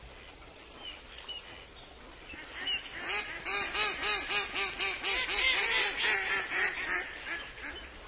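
Ducks calling: a few faint high peeps, then about three seconds in a loud rapid run of short quacks, about four a second, that fades out near the end.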